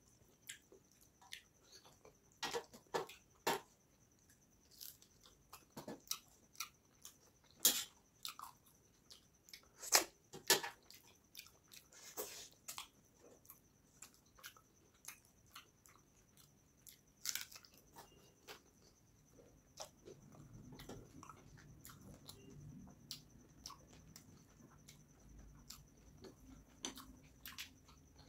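Close-up eating sounds of a man eating fish curry and rice with his fingers: chewing with many short, wet mouth clicks and smacks, loudest around eight and ten seconds in. A low murmur comes in during the last third, and a faint steady high whine runs underneath.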